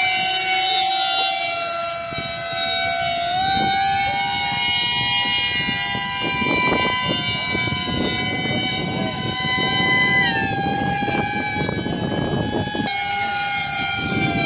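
High-pitched whine of a radio-controlled model plane's electric motor in flight, stepping up in pitch about three and a half seconds in and partly back down about ten seconds in as the throttle changes. A rushing noise sits under it for several seconds in the middle.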